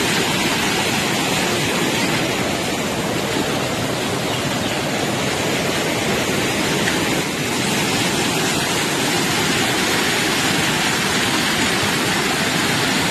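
Fast-flowing muddy floodwater rushing past, a steady loud wash of water noise.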